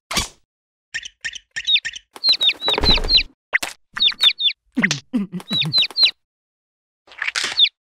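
Cartoon chick's voice peeping in quick runs of short, high, falling chirps, three to five at a time.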